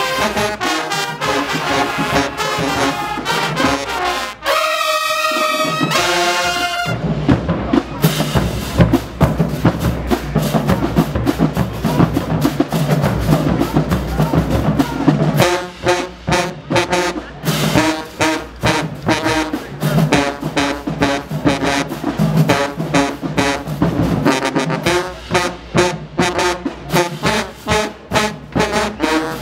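High school marching band playing, with sousaphones, trumpets and trombones over drums. The horns hold a long chord about five seconds in, then the drums come to the front for several seconds before the brass returns with short, rhythmic punches about halfway through.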